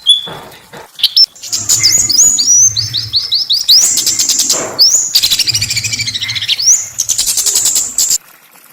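A small songbird singing a fast, harsh song of quick rising chirps and rattling trills. It cuts off abruptly near the end.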